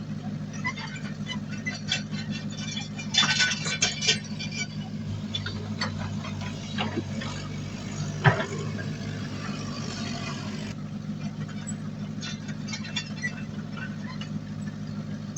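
Heavy diesel earthmoving machinery running steadily, with scattered metallic clanks and rattles, a stretch of hiss in the middle, and one loud bang about eight seconds in.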